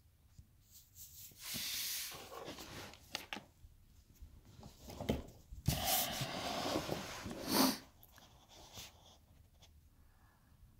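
Rubbing and scraping handling noise in two stretches, one starting about one and a half seconds in and one around six seconds, with a few clicks among them.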